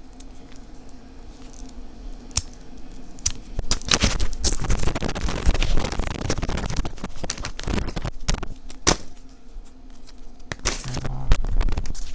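Scratching, crackling handling noise with scattered clicks as a new braided USB-C cable is unwrapped and its Velcro tie pulled open. It is densest and loudest in a rasping stretch from about three to seven seconds in.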